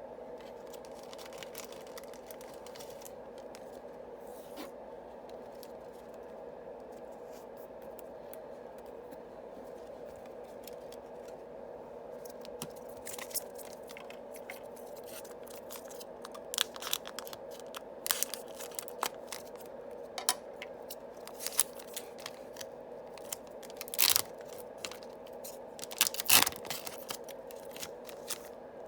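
Yu-Gi-Oh booster pack wrapper being torn open and handled, with scattered crinkles and tearing sounds that grow busier in the second half and are loudest near the end. A steady low hum runs underneath.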